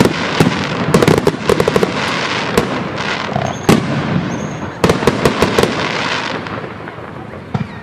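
Aerial fireworks going off in a dense volley: many sharp bangs and bursts of rapid crackling, dying away over the last two seconds.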